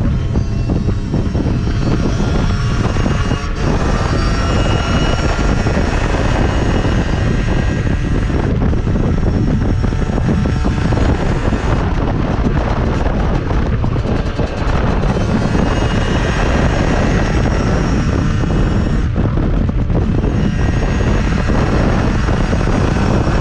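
Dirt bike engine running under way on the road, steady and loud, with its note dropping briefly a few times, and wind rushing over the handlebar-mounted microphone.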